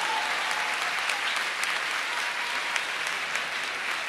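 Audience applauding: dense, even clapping.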